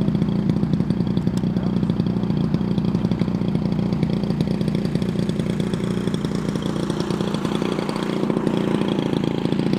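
Small petrol engine of an RC model tow plane running steadily at an even speed, its note shifting slightly about eight seconds in.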